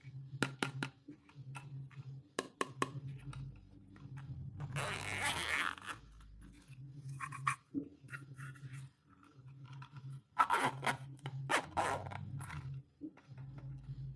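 Stationery packaging being handled and opened by hand: scattered clicks and taps, with a longer rustling, tearing stretch about five seconds in and another about ten to twelve seconds in.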